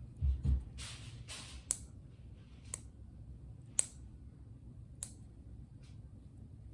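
Dog nail clippers snipping a Bernese Mountain Dog puppy's nails: four sharp clicks about a second apart. Before them come a couple of low bumps and rustling from handling the puppy.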